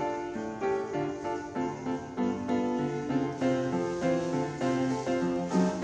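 Background music: a melody of keyboard notes changing every fraction of a second.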